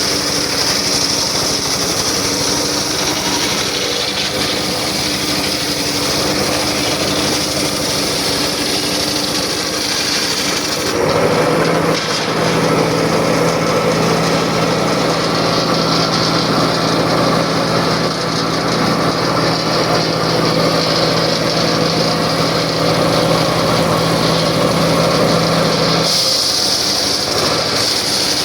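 Circular saw running steadily, with the sound of wood being cut. About eleven seconds in its pitch and load change, with a steady low hum, and they change back near the end.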